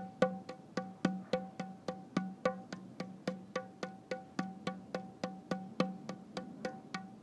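Music: a steady pulse of short plucked or struck notes, about four a second, over a held low tone.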